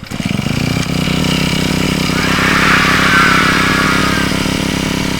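Small petrol engine of a garden power tool pull-started: it catches right away and keeps running steadily, getting a little louder in the middle.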